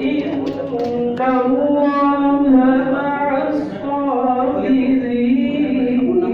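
A man's solo religious chant into a microphone: one voice holding long melodic notes that slide up and down, with a brief pause a little past the middle.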